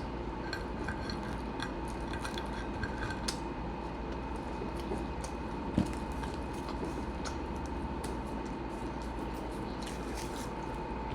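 Small scattered clicks and taps of food and tableware being handled while eating, with one sharper knock about six seconds in, over a steady background hum.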